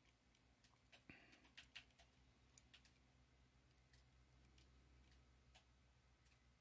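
Near silence: room tone with a faint low hum and a few scattered faint ticks.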